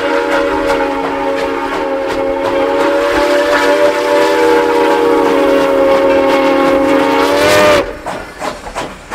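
Multi-chime steam locomotive whistle of 2-8-2 Mikado #4960 blowing one long chord for a grade crossing. It cuts off about eight seconds in, its pitch sagging as it closes, and a quick run of clicks and knocks from the passing train follows.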